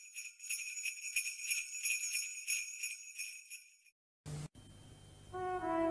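Sleigh bells shaken in a steady rhythm, about four shakes a second, stopping about four seconds in. Near the end, brass music begins.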